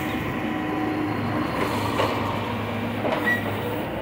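Backhoe loader's diesel engine running steadily under load as the bucket digs and lifts soil out of a trench, with a couple of short knocks from the bucket about halfway through and near the end.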